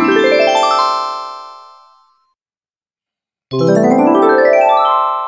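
A quick rising run of bright, ringing musical notes that swells and then fades away, heard twice: the first dies out about two seconds in, and after a stretch of complete silence the same flourish starts again past the middle.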